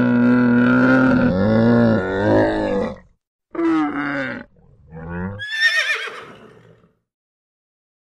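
Calls of a large hoofed mammal. A long, steady pitched call wavers and breaks off about three seconds in. Two short calls follow, then a higher, wavering call that falls in pitch and fades away.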